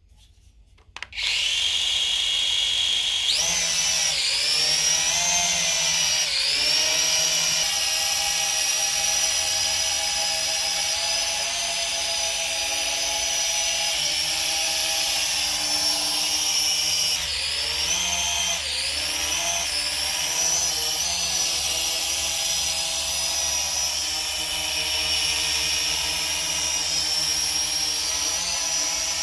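Toy remote-control quadcopter's small electric motors and propellers whining steadily. The whine starts about a second in, jumps up in pitch about three seconds in, and dips and rises in pitch a few times.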